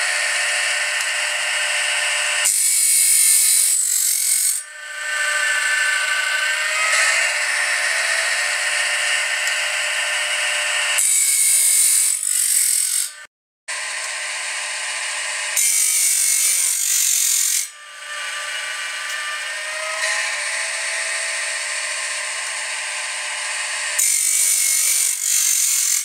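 Woodland Mills sawmill band-blade sharpener grinding the teeth of a band blade with its electric grinding wheel, tooth by tooth, running a bit slow on the sawmill's small battery. A steady grinding whine, with a louder, harsher stretch of a second or two every few seconds.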